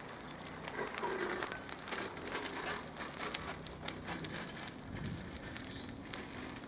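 Bicycle tyres crunching over a gravel track as cyclists ride past, a dense, irregular crackle of small clicks.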